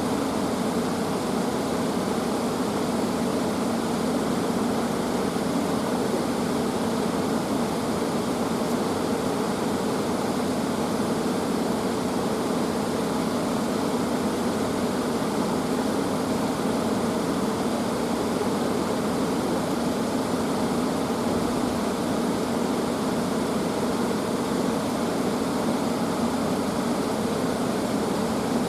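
A steady, even rushing noise that holds without change or breaks.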